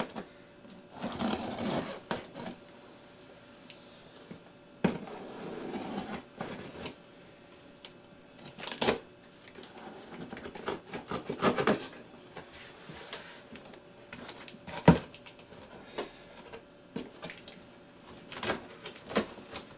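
Packing tape on a cardboard box being slit along its seam, with irregular scraping and rustling of cardboard in short spells and one sharp knock about 15 seconds in.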